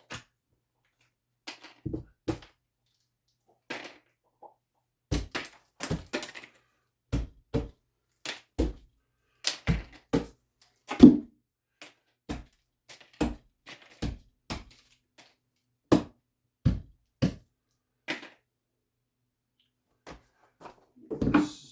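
Plastic tile spacers being knocked out and snapped off between wall tiles: a string of irregular, sharp clicks and knocks, the loudest about eleven seconds in.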